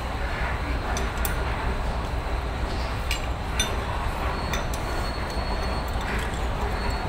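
A few light metallic clinks of parts being handled while an air compressor is fitted to the engine, over a steady low rumble.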